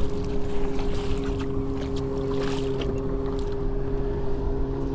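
A hooked redfish splashing and thrashing at the surface beside the boat as it is brought in by hand. Underneath are a steady low hum and wind rumbling on the microphone.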